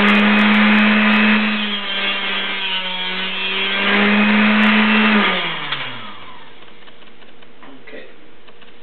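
Small high-speed power tool cutting a sliver off a carbon arrow shaft. Its whine is at full speed at the start and sags in pitch under the load of the cut in the middle, then recovers. It winds down and stops about five to six seconds in.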